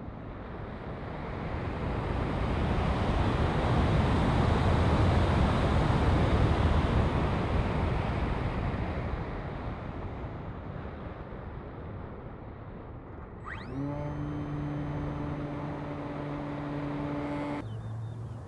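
Air rushing over the onboard camera of a gliding RC plane with its propeller folded, swelling and then fading. About thirteen seconds in, the 2836 1120kv brushless motor spins up with a sharply rising whine and holds a steady whine with the propeller until the sound breaks off abruptly near the end.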